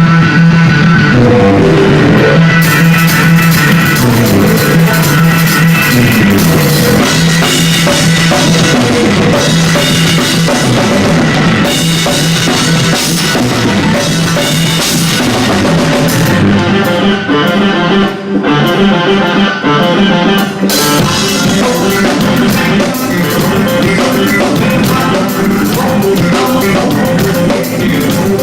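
Rock band playing live, instrumental: drum kit, electric guitar and a sliding funk bass line. The cymbals drop out briefly just past the middle.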